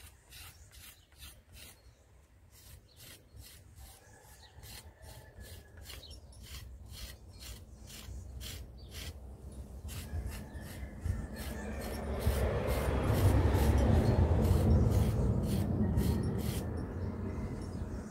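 A curved potter's rib scraping dried slip off the inside of a leather-hard clay bowl in short, even strokes, about two a second, clearing the surface to reveal the slip-inlaid lines. The scraping grows louder through the second half, with a rushing noise underneath.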